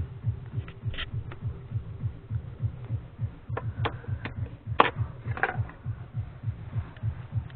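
A few sharp metallic clicks and taps from tools and parts while a typewriter mechanism is being taken apart, the loudest about five seconds in. Under them runs a low pulsing hum of about five beats a second.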